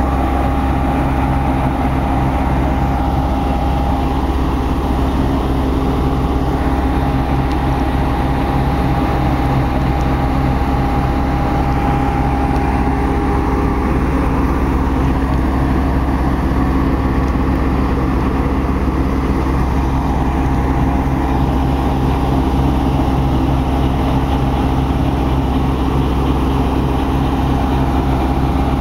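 Baldwin-Lima-Hamilton RS-4-TC 48-ton diesel-electric locomotive's engine idling steadily: an even, loud low rumble with a steady whine over it.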